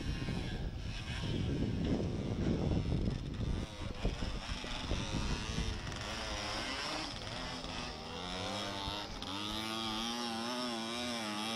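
Dirt bike engine revving up and down, its pitch wavering with the throttle, clearer from about halfway through. Over the first few seconds a low rumbling noise largely covers it.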